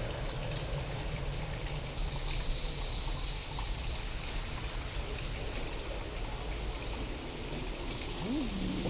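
Steady rain with a low rumble underneath, from a storm recording given an alien treatment. A faint high steady tone comes in about two seconds in, and a short rising-and-falling glide sounds near the end.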